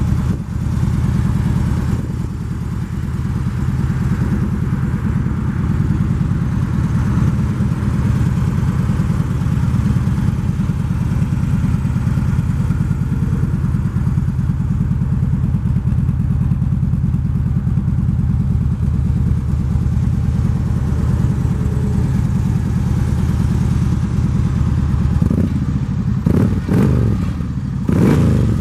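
Harley-Davidson Road King V-twin running through Vance & Hines Dresser Duals exhaust, idling steadily with an even pulse, then revved in several quick throttle blips near the end.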